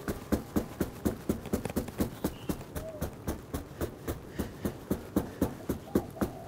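Wooden pestle pounding pan-dried spiced beef on a round wooden chopping board: steady dull knocks, about three or four a second, crushing the meat so it can be shredded.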